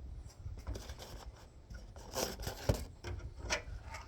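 Handling noise: rubbing and scraping with a few light clicks and knocks, the sharpest about two and a half seconds in.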